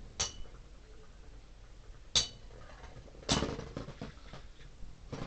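Metal-wheeled Beyblade spinning tops colliding in a plastic stadium: a few sharp metallic clinks, three louder hits spaced about a second or two apart, the third followed by a short rattle.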